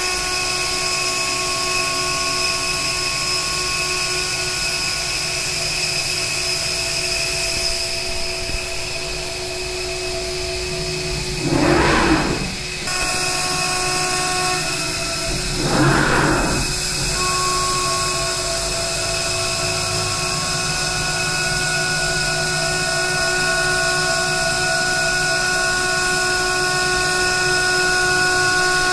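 CNC router spindle running while its cutter takes a light facing pass along an aluminum rail channel: a steady whine made of several held tones, with two brief, louder, noisier surges about twelve and sixteen seconds in.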